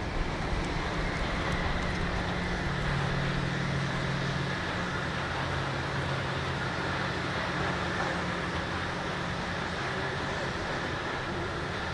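Steady low engine hum over constant traffic noise.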